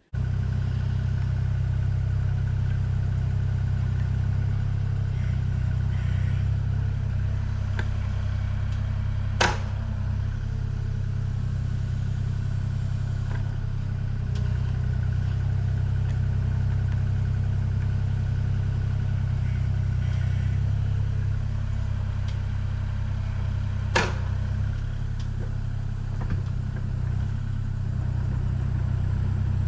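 Kubota KX040-4 mini-excavator's diesel engine running steadily under working load while it digs a trench, with two sharp metallic clanks about 15 seconds apart.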